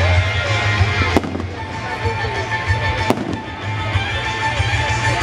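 Fireworks shells bursting: two sharp bangs, about a second in and about two seconds later, over music and a continuous low rumble.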